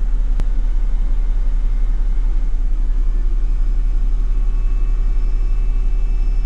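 Mercedes-Benz W204 C-Class engine idling, a steady low rumble heard from inside the cabin. A single sharp click comes shortly in, and a faint high tone joins in the second half.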